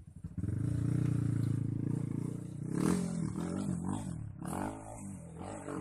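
Motorcycle engine running steadily, then revved up and down in several rises and falls of pitch from about three seconds in.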